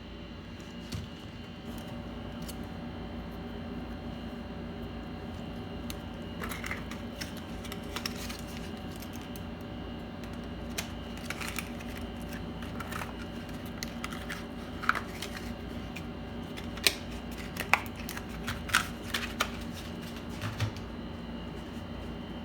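Scattered light clicks and taps of small parts and tools being handled during computer repair work, sharpest and most frequent in the second half, over a steady hum.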